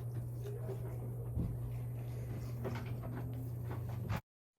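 Quiet room tone: a steady low hum with a few faint clicks and knocks, cut off abruptly near the end.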